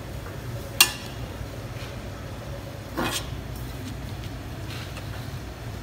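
Metal skimmer and spatula tossing noodles in a wok: a sharp clank of metal on the pan just under a second in and a second knock and scrape about three seconds in, over a steady low rumble.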